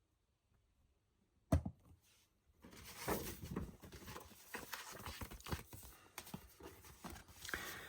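A single knock about a second and a half in, then rustling and crinkling with many small clicks as a thick glossy paper poster is handled and turned over.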